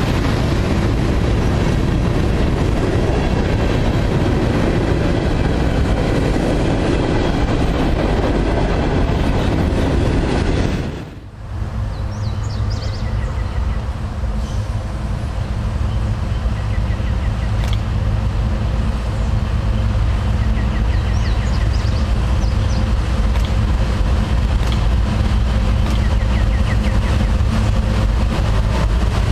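Freight train passing close by, its covered hoppers and tank cars rumbling and clattering over the rails. After a cut about eleven seconds in, CSX diesel locomotives approach at the head of a loaded coal train with a steady low engine drone.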